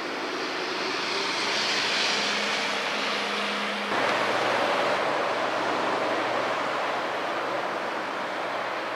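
Road traffic noise: a vehicle passing, swelling and easing over the first few seconds, then an abrupt cut about four seconds in to a steadier rushing noise.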